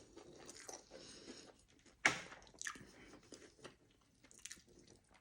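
Close-up chewing of food: soft, wet mouth sounds and small clicks, with one sharper click about two seconds in.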